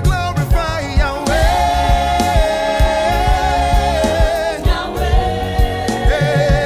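Gospel song: voices, tagged as a choir, hold long, wavering sung notes over a steady drum and bass beat.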